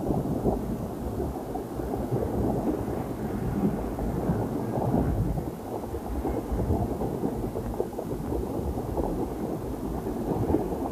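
Water bubbling and churning inside a flooded diver lock-out chamber: a dense, low rushing noise that carries on without a break.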